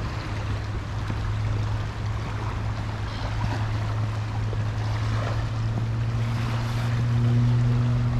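A steady low engine drone, growing louder near the end, over a haze of wind and water noise.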